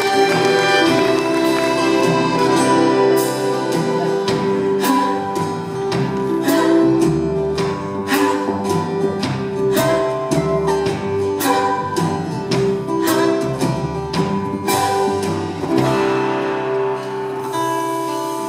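Live band playing an instrumental passage of a waltz, with guitar strumming under sustained string notes.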